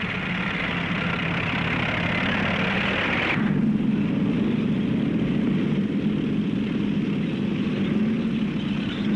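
Military vehicle engines running steadily. About a third of the way in the sound changes abruptly: the hiss drops away and a deeper engine drone takes over.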